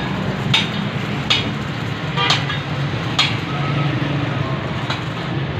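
Steady low engine drone, like a tractor's diesel running, with sharp taps every second or so at irregular spacing.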